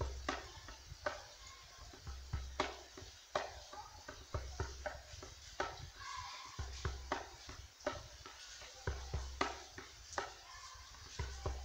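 Campfire crackling, with irregular sharp snaps and pops from the burning wood. A low boom recurs about every two seconds underneath.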